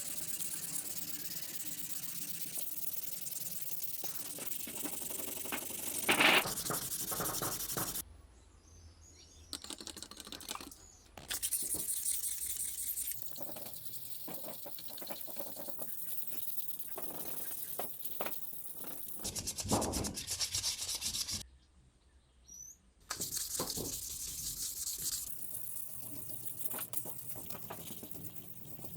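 Metal parts being sanded and rubbed by hand: a rough, scratchy rubbing that stops and starts several times.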